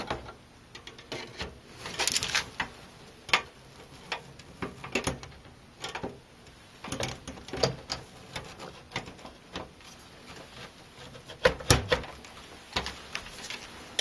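Irregular clicks, taps and light knocks as a graphics card is handled and fitted into a PC case, its metal bracket and edges knocking against the chassis and expansion slot. The loudest knocks come about two seconds in and again near the end.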